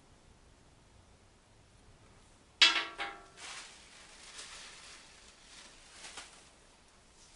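A man blowing his nose hard into a paper tissue: one loud, buzzing honk about two and a half seconds in, a shorter second blow right after, then soft tissue rustling.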